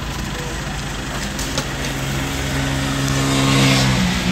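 A motor vehicle engine running, a steady hum that grows louder and shifts in pitch near the end.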